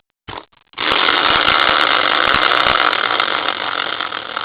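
Prize wheel spinning, its pointer clicking rapidly over the pegs in a fast, buzzing rattle that starts abruptly about a second in and begins to fade near the end as the wheel slows.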